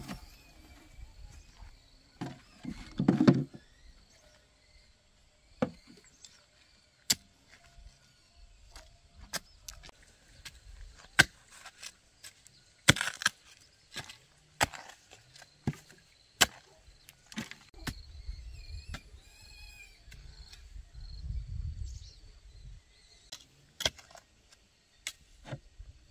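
A heavier thump about three seconds in, then a long-handled digging tool striking into hard, stony soil again and again, a sharp knock roughly every second, as a post hole is dug.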